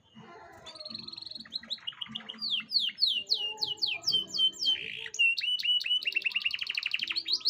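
Domestic canary singing a long, varied song: a string of quick down-sweeping notes and short held whistles, then a rapid trill in the second half.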